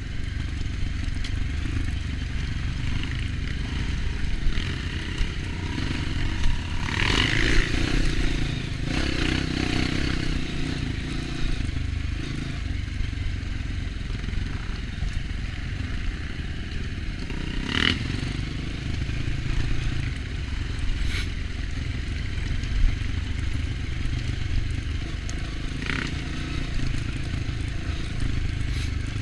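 Trail motorcycle engine running steadily at a low chug while riding off-road. Scrapes and clattering come through a few times, the loudest about a third of the way in.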